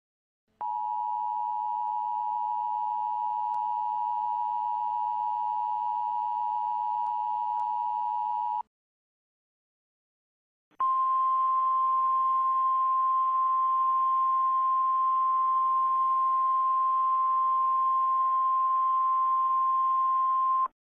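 Emergency Alert System two-tone attention signal, a steady dual-tone alarm lasting about eight seconds, then, after a two-second gap, the single steady 1050 Hz National Weather Service warning alarm tone for about ten seconds. The tones announce an emergency broadcast, here a tornado warning.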